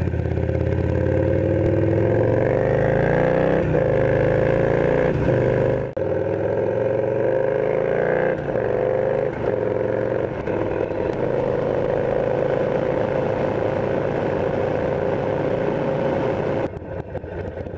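Harley-Davidson Sportster V-twin engine accelerating through the gears, its pitch climbing and breaking off at each shift, then running steadily at cruising speed, with wind noise. The level drops sharply near the end.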